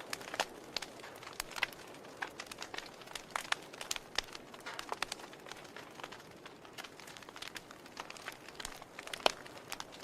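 Wood fire of burning logs crackling: irregular sharp pops and snaps, several a second, over a soft steady hiss of the flames.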